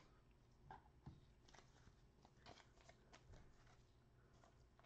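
Near silence, with a few faint, short clicks and rustles of trading cards being handled.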